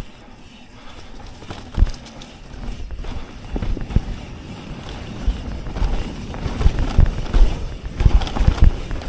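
A mountain bike being ridden over rough ground: irregular knocks and rattles, thicker and louder from about halfway.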